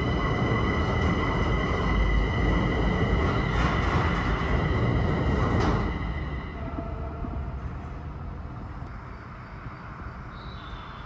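A Linimo maglev train gliding past close by, its steady high whine sitting over a rushing hum. The sound drops away and fades about six seconds in as the train moves off.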